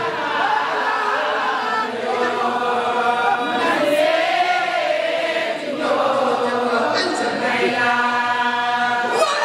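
A group of women chanting a Sufi zikr together, many voices singing loudly in unison.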